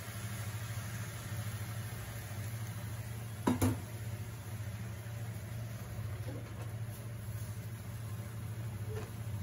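A rubber spatula knocks sharply twice against a metal cooking pot about three and a half seconds in, then scrapes faintly over the bottom of the pot as the stew is stirred, loosening what has stuck there. A steady low hum runs underneath.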